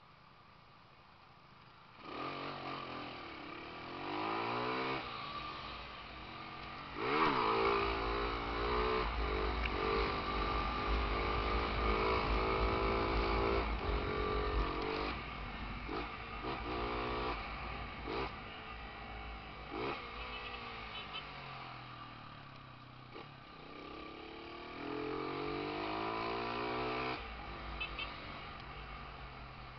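Honda CG motorcycle's single-cylinder four-stroke engine, bored out to 194cc. After about two seconds of quiet it pulls away and accelerates through several gears, the pitch climbing and dropping back at each shift. It eases off in the middle and revs up again near the end.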